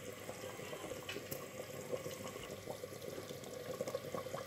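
Thin meat curry broth simmering in a clay pot, faint bubbling with small scattered pops over a low steady hum.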